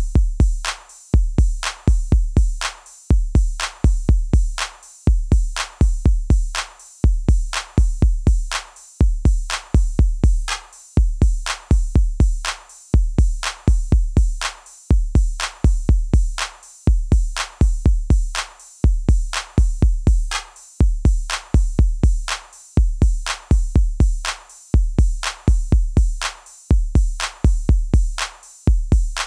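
Electronic background music with a drum-machine beat: deep bass-drum kicks and sharp clicks repeating in a steady rhythm.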